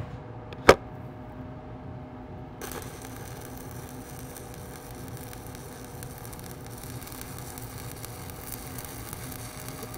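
Stick (SMAW) welding arc burning a 1/8-inch 7018 electrode at about 130 amps on steel plate: a steady hiss that starts about two and a half seconds in as the arc is struck for the hot pass over the root. A single sharp click comes just under a second in.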